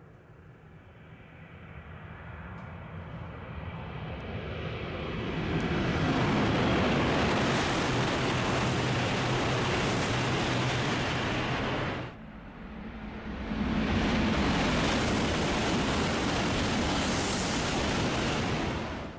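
E5-series Shinkansen passing through a station at high speed: a loud rush of air and wheel noise builds over about six seconds and holds, with a low hum under it. The sound breaks off abruptly about twelve seconds in, and a second high-speed pass rushes up loud and holds until it cuts off at the end.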